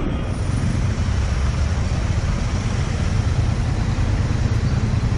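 Steady wind rumble and road noise from an action camera on a moving scooter in traffic.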